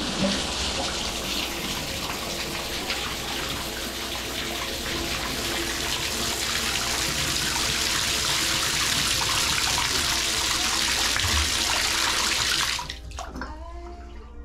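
Water running from a three-handle Gerber tub/shower valve out of the tub spout into the bathtub, a steady rush, as the newly repaired valve is tested for leaks at the stem packing. About 13 seconds in the handle is shut and the rush drops to a thin trickle.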